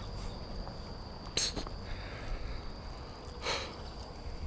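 Faint steady high-pitched insect buzz over wind rumble on the microphone, with two short noises, about a second and a half in and again near three and a half seconds.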